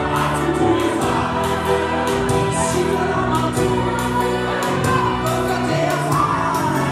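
Gospel worship song: voices singing together over keyboard accompaniment with a steady percussive beat.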